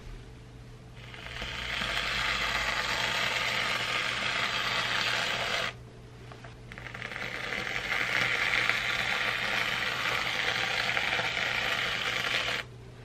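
Aerosol whipped-cream can spraying cream onto two drinks: two long hissing sprays, each building up over a second or so and cutting off sharply as the nozzle is let go.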